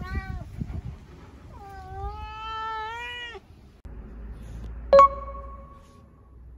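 A tabby cat meowing: a short meow, then a long drawn-out meow. Later comes a single sharp click that rings on for about a second.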